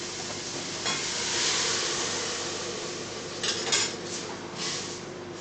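Cooking on a stove: a steady sizzle, joined by a spoon scraping and clinking against a metal pot a few times in the second half.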